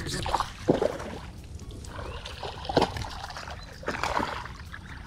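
A hooked bass thrashing and splashing at the water's surface as it is reeled in beside a kayak: several short, sudden splashes.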